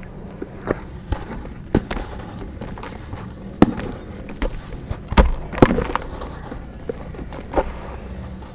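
Chunks of dry dirt being crushed and crumbled, giving irregular sharp crunches and cracks, a few of them clustered about halfway through.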